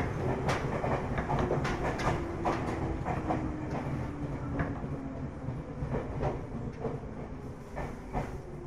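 Inside a Ryutetsu 5000-series electric commuter car standing at a platform: a steady low hum of the car's equipment with scattered clicks and knocks, and a faint tone that slowly falls in pitch as the whole sound gradually fades.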